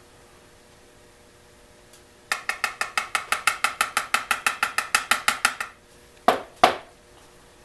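Rapid light metallic tapping, about nine taps a second for some three seconds, then two sharp knocks: a pin-tumbler lock cylinder being worked to dump its pin stacks.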